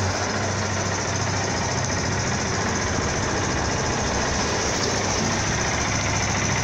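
Yamaha Fazer 250's single-cylinder engine idling steadily, running smoothly with no cam chain tick-tock after its cam chain tensioner was adjusted.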